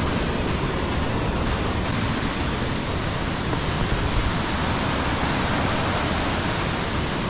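Steady, loud rush of flowing water, an even hiss-and-roar with no breaks or separate splashes.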